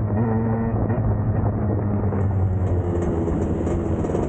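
Two-stroke dirt bike engines running at a fairly steady speed.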